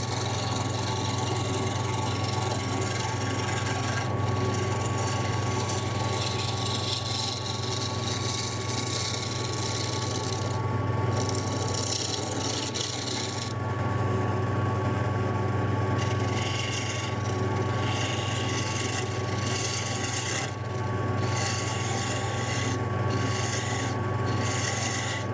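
Wood lathe running with a steady hum while a turning tool scrapes and rasps against the spinning wooden spindle blank, roughing it down to round. The cutting noise breaks off briefly several times as the tool comes off the wood, while the motor hum carries on.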